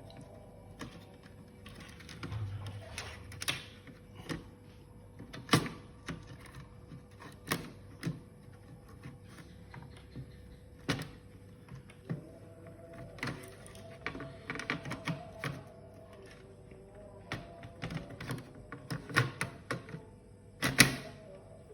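Irregular clicks and taps of laptop keys being pressed, with some louder knocks, the loudest near the end.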